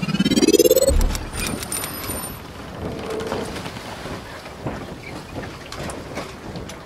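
Channel-logo intro sound effect: a rising whoosh that ends in a low boom about a second in, then a steady rushing noise with scattered ticks and brief high shimmering tones.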